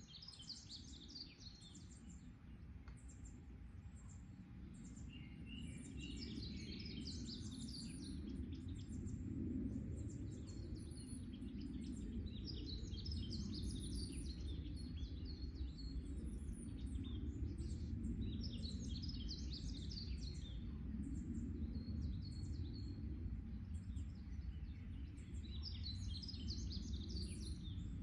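Songbirds chirping in the woods: short bursts of quick, high chirps repeat every couple of seconds, over a steady low rumble of background noise that grows louder a few seconds in.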